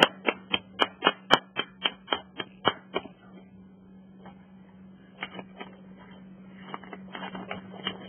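A seasoning shaker being shaken over a bowl: a rapid run of sharp clicks, about four a second, for about three seconds, then fainter scattered taps.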